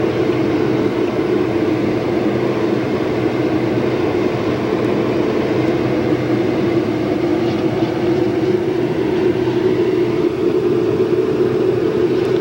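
Automatic car wash running during its clear coat rinse and polish stage, heard from inside the car: a steady hum of machinery with spraying water, unbroken throughout.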